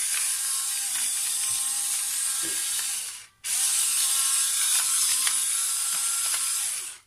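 A steady high hiss with faint ticks in it, cut off abruptly a little over three seconds in and again at the end.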